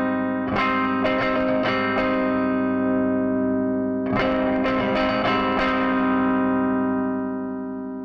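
Electric guitar playing chords through a TC Electronic HyperGravity compressor pedal that has just been switched on. A few quick strums come in the first two seconds, then one chord struck about four seconds in rings out and slowly fades.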